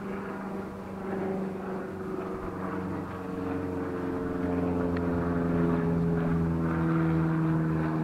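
An engine drones steadily and grows gradually louder, its pitch slowly falling.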